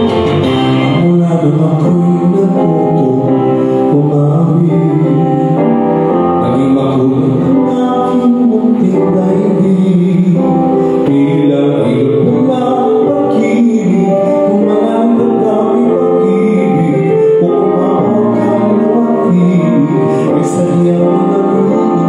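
A man singing into a handheld microphone, amplified through a PA, over instrumental backing music.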